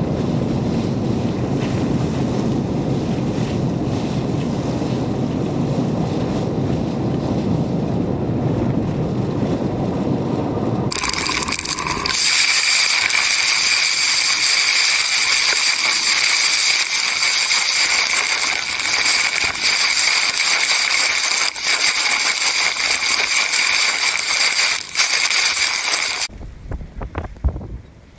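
Hurricane-force wind: a low, rumbling buffeting of wind on the microphone for about eleven seconds. It then changes abruptly to a loud, steady high hiss of storm noise, which drops away sharply near the end.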